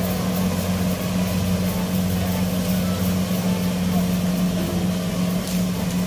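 A Kubota rice combine harvester's diesel engine runs at a steady pitch as the machine cuts and threshes rice, making an even, continuous drone.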